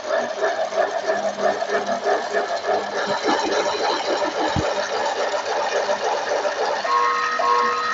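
A fast, rhythmic mechanical clatter of about four or five beats a second. About seven seconds in, an electronic alarm starts beeping about twice a second in short bursts of several tones.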